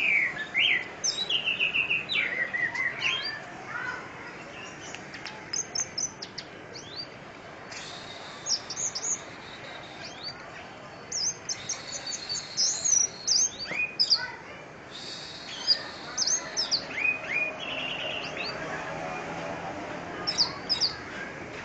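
Orange-headed thrush singing: a varied run of short, high whistled and chattering phrases, coming in bursts with brief gaps.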